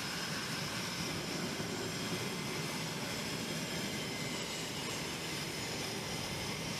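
Jet aircraft engines running on a carrier flight deck: a steady noise with a faint, high whine held throughout.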